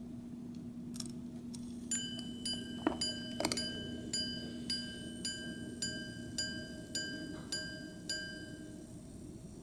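Five-minute repeater pocket watch striking the hours on its gong: about a dozen evenly spaced single ringing strikes, roughly two a second, starting about two seconds in. This is the watch counting out twelve o'clock.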